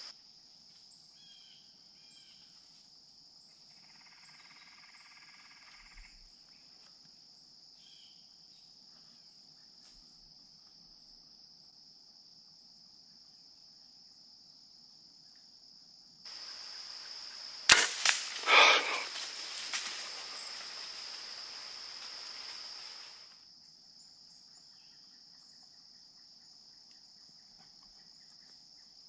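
Compound bow shot: a single sharp snap a little past halfway, followed by several loud thuds and rustles over the next two seconds. Insects keep up a steady high drone underneath.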